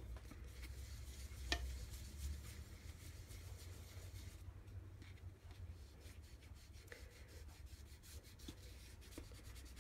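Faint rubbing of a hand baren pressed across the back of a sheet of printing paper, burnishing it onto a pre-inked linocut block to transfer the ink. A steady low hum runs underneath, with a light tap about a second and a half in.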